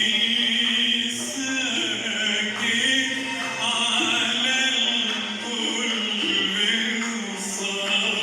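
Classical Arabic song performed live: a man's voice singing long, ornamented held notes over an Arabic music ensemble.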